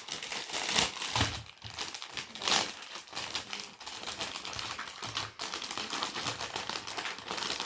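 Plastic packaging crinkling and rustling as it is handled, a dense run of small crackles and clicks.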